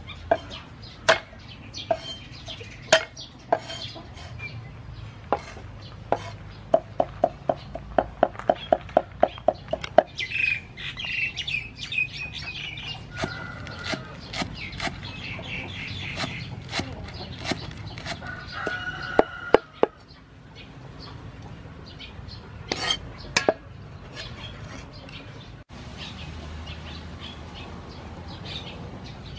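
Cleaver chopping green onions on a wooden chopping board: sharp, even knocks, with a quick run of about four strokes a second around seven seconds in, then only scattered strokes.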